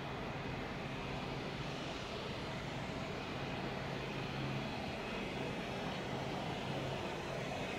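Jet airliner engines running steadily at an airport, a constant rushing hum with a faint high whine.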